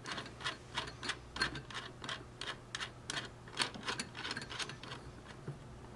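Small metal nut being hand-threaded down the gumball machine's metal center rod, giving a run of light, irregular clicks, about three or four a second.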